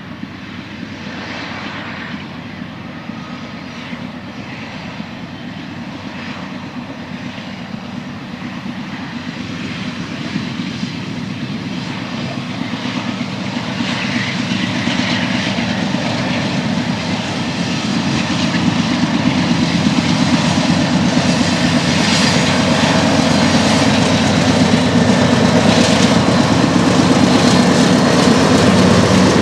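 Diesel locomotives of an approaching freight train, a steady low engine drone growing louder.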